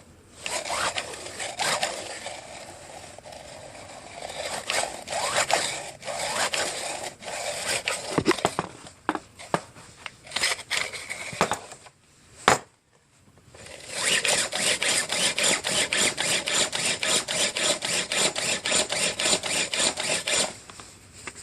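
Recoil starter of a Tecumseh 5 hp horizontal-shaft snowblower engine being worked by hand: irregular scraping and clicking of rope and starter, then a sharp knock, then a fast, even rattle of about six beats a second for several seconds that cuts off suddenly.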